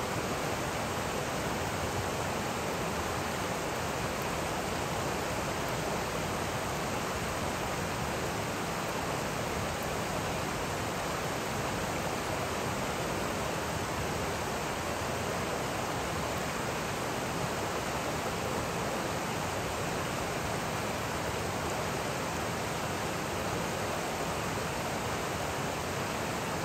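Steady rushing of a shallow, rocky river as it runs over and around boulders, an even noise with no breaks.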